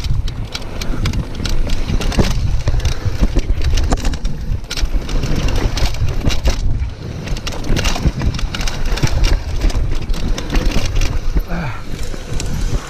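Mountain bike running fast down a dirt trail strewn with loose stones: the tyres crunching over the ground and the bike rattling and knocking over bumps, over a steady low rumble.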